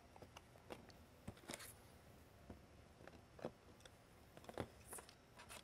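Faint, scattered clicks and taps of the plastic housing parts of a Whelen 400 Series LED lighthead being handled and pressed together on a tabletop, at irregular intervals over a quiet room.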